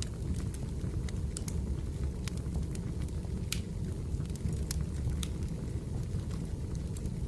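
Firewood burning: a steady low rumble of the fire with scattered sharp pops and crackles from the logs.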